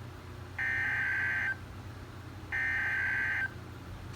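Emergency Alert System SAME header data from a weather radio: two bursts of rapid warbling digital tones, each about a second long and a second apart. This is the encoded header that opens a severe thunderstorm watch alert. A faint steady hum runs underneath.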